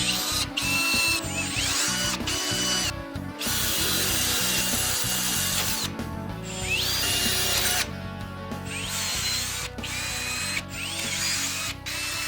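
Power drill running in a string of short cuts: steady high whines broken by abrupt stops, with several rising whines as the drill spins up. Background music plays underneath.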